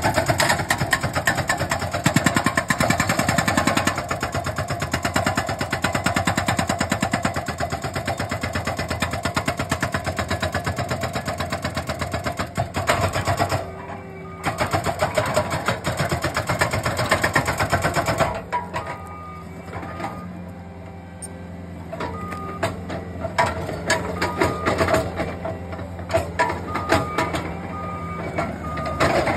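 Hydraulic breaker on a Bobcat compact track loader hammering rapidly on rock, with a brief pause about 14 seconds in, until it stops about 18 seconds in. Then the loader's diesel engine runs on, with a backup alarm beeping at an even pace and a few scattered knocks.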